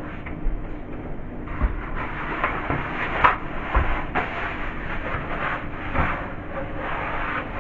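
Cloth scrubbing and wiping the inside of a fridge in uneven strokes, with a few dull knocks against the fridge about 1.7, 4 and 6 seconds in.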